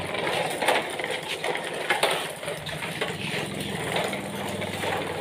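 Plastic toy trucks tied together in a convoy, rolling and rattling over tiled and concrete ground as they are pulled along on a string, with an uneven run of small clatters from the wheels and bodies.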